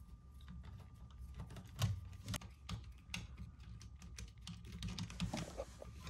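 Small, irregular metal clicks and taps from a screwdriver working at the metal mounting clips on a washer's drive motor.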